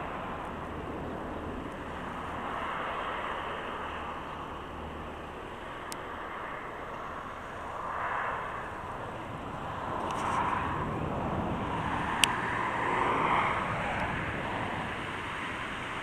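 Steady running noise of a moving vehicle, swelling and easing a little, with one sharp click about twelve seconds in.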